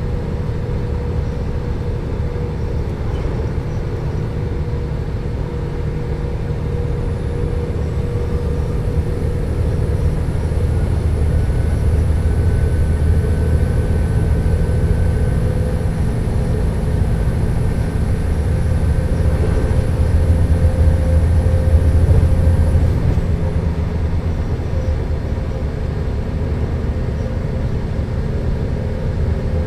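Alstom LINT 41 H diesel multiple unit standing with its diesel engines idling: a steady low rumble with a constant hum above it. A faint high whine joins about a quarter of the way in and stops about three quarters through, and the rumble grows a little louder in the middle before easing off again.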